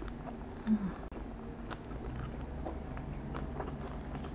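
Close-miked chewing of a mouthful of boneless fried chicken: a run of small, irregular clicks and soft crunches, with a brief low hum about a second in.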